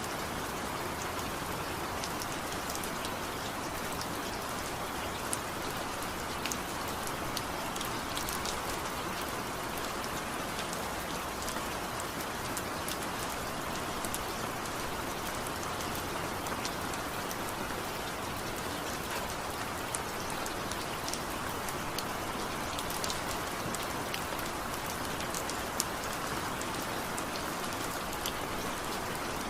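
Steady rain falling: an even hiss with many scattered sharp taps of single drops.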